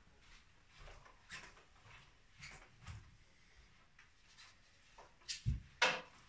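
Faint knocks and steps of a player moving round a pool table with his cue, then a dull thud and a loud sharp click in quick succession near the end.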